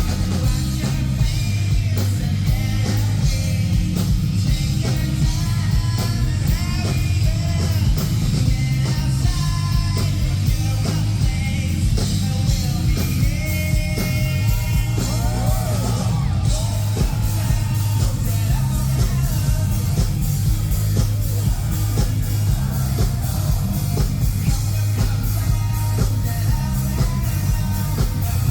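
Live rock band playing a song: singing over drums, a heavy bass line and guitar, steady and loud throughout.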